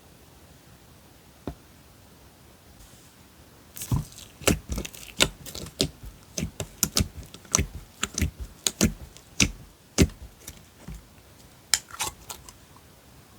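Slime being pressed and worked, making a quick irregular run of sharp clicking pops, about two or three a second, starting about four seconds in.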